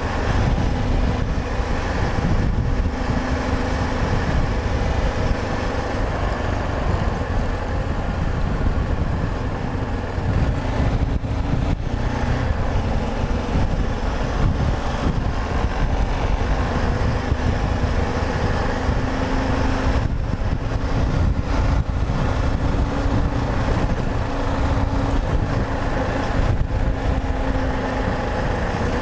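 Yamaha XT 660Z Ténéré's single-cylinder engine running steadily while the motorcycle is ridden, mixed with a steady wind noise over the microphone.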